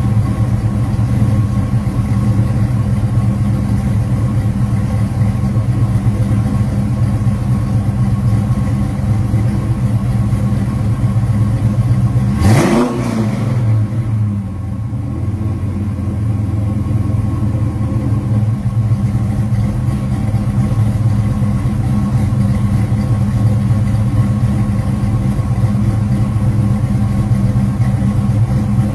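Small-block V8 with a mild cam idling through an aftermarket performance exhaust. There is one quick rev about twelve seconds in that rises and falls straight back, after which the idle dips briefly and settles.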